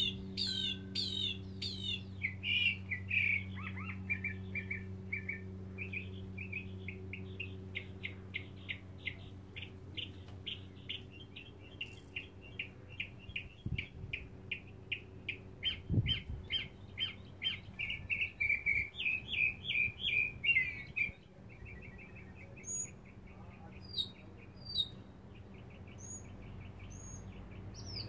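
A male northern mockingbird singing on and on, stringing together phrases of quickly repeated notes that change every few seconds, with higher chirps near the end. It is the song of an unmated male advertising for a mate. A steady low hum runs underneath.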